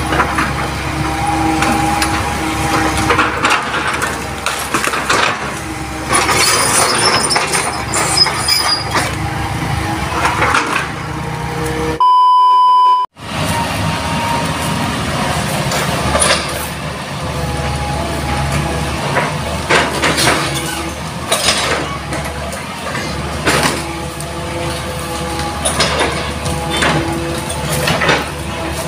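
Hitachi hydraulic excavator working, its diesel engine running steadily, with repeated knocks and cracks as it handles felled tree branches and motorbikes passing. About halfway through, a steady high beep cuts in for about a second while everything else drops out.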